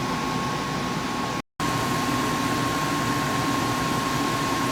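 Costway 10,000 BTU portable air conditioner running in cool mode with its compressor on: a steady rush of air with a faint steady whine. The sound cuts out briefly about a second and a half in.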